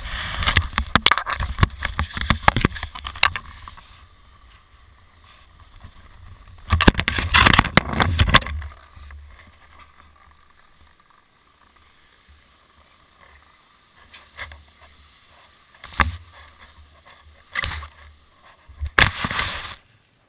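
Skis scraping and sliding on packed snow in two long noisy bursts, heard through a head-mounted action camera, then a few knocks and rubbing on the camera near the end before the sound cuts off.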